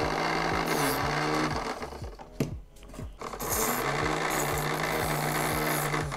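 Battery-powered Kyocera electric knife sharpener's motor whirring, with a grinding rasp as a dull ceramic knife blade is drawn through its sharpening slot. It runs in two spells of about two seconds each, with a break near the middle.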